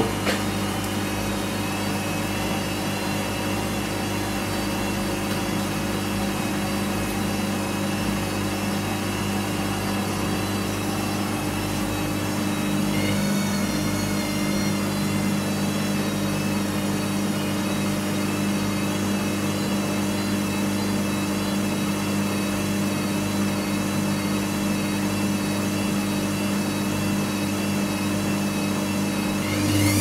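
Hoover HTC247 top-loading washing machine running between short spin impulses in its final spin, a steady hum with a faint wavering whine above it. The hum steps up slightly about 13 seconds in.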